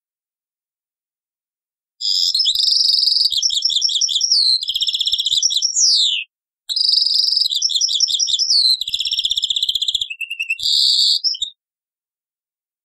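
European goldfinch of Algerian stock singing: two long phrases of fast twittering, trills and sliding notes, the first starting about two seconds in and the second after a brief pause, stopping shortly before the end.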